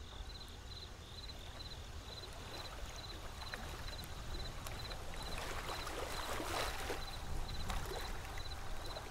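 Outdoor nature ambience: a soft rushing like flowing water that swells in the middle, over a steady low rumble, with a faint high chirp repeating about twice a second.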